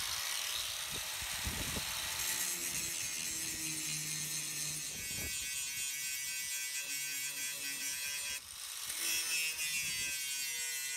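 Electric angle grinder running steadily, its disc grinding rusty steel on the end of a Land Rover chassis bulkhead outrigger clean, ready for welding. The whine dips briefly about eight and a half seconds in, then picks up again.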